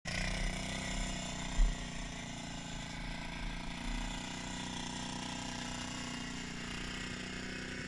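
Honda 450 ATV's single-cylinder four-stroke engine idling steadily with a low, even chugging. A single sharp knock stands out about one and a half seconds in.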